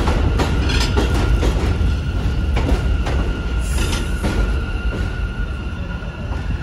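New York City subway train of Alstom R160A cars running past: a heavy rumble with wheels clicking over rail joints and a steady high-pitched whine, slowly fading as it moves off.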